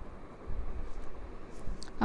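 A spatula scraping and knocking softly in a pan of chicken pieces in yogurt and onion gravy, over a low steady hiss.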